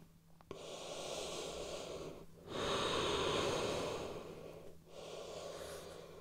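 A yoga practitioner's slow, audible breaths through the microphone: three long breaths of about two seconds each, the middle one the loudest.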